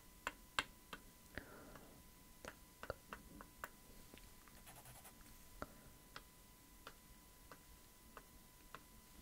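Faint, scattered light clicks and taps of a wooden ruler and a thin wooden stick handled close to the microphone, irregular, about one or two a second.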